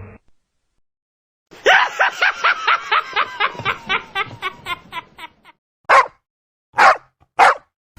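A laughing sound effect: a person laughs hard in a fast run of 'ha' pulses, about five a second, that trails off, then takes three wheezing breaths.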